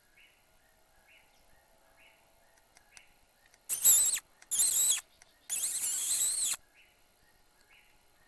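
Predator call playing a rabbit distress call: three high, wavering squeals in quick succession, the last one the longest.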